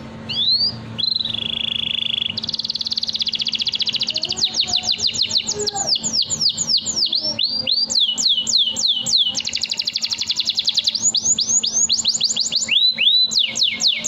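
Domestic canary singing a long, almost unbroken song: rapid trills and buzzy rolls alternating with runs of quick downward-sweeping notes, several a second, changing from one phrase to the next every second or two.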